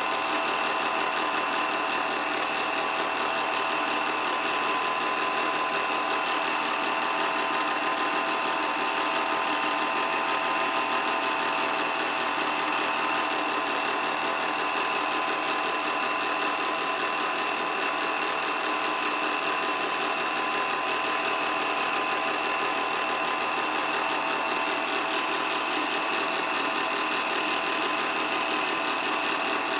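8mm film projector running steadily, its mechanism whirring and chattering evenly with a constant whine over it.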